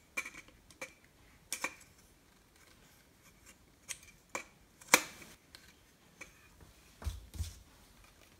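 Small plastic and metal camera parts clicking and knocking as a mini tripod is screwed onto a GoPro in a metal case. The clicks are scattered and sharp, the loudest about five seconds in, with two duller knocks near the end.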